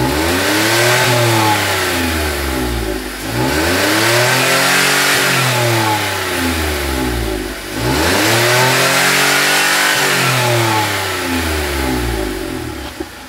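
Skoda 1.2-litre three-cylinder 12-valve petrol engine (CGPC) heard at the tailpipe, revved up and let fall back three times, each rev rising and falling over about four seconds.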